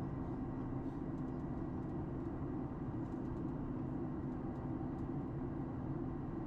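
Steady cabin noise of a Boeing 737 MAX 8 airliner in flight on approach: an even low hum of engines and airflow, with a faint steady high tone.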